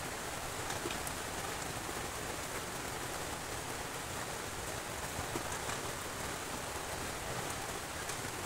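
Steady rain, an even hiss with a few faint ticks of drops.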